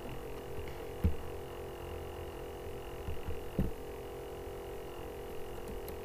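Steady background hum made of several held pitches, broken by two soft thumps, one about a second in and one a little past the middle.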